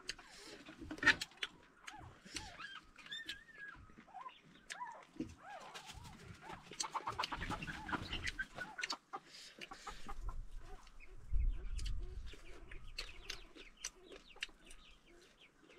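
Chewing and crunching of fried food with sharp clicks, under short high-pitched animal calls, clucking or squeaking, from poultry or young animals nearby. A low rumble runs for a few seconds in the second half.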